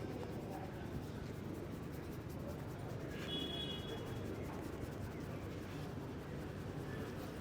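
Hands rubbing and scratching through hair and scalp during a head massage, over a steady street background hum. A brief high-pitched tone sounds about three seconds in.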